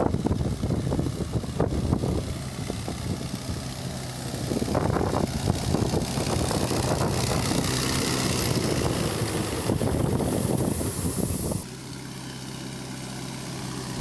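VST Shakti Virat 27 hp tractor running with a 600-litre blower sprayer: a steady engine drone under a loud rushing fan noise. A little over three-quarters of the way through, the sound drops sharply to a quieter, steady engine drone.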